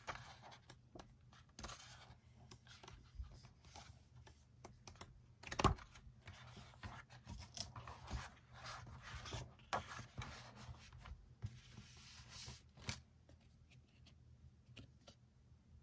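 Pages of a hardcover album photobook being turned and handled: paper rustling and sliding in short, irregular strokes, with one louder tap a little under six seconds in.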